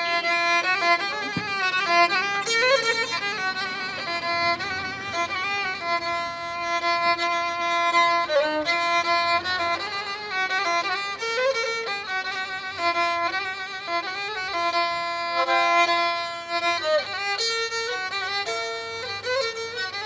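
Solo violin bowed in a Turkish folk-music improvisation: a freely flowing melody of held notes with wide vibrato, linked by quick ornamented turns and slides.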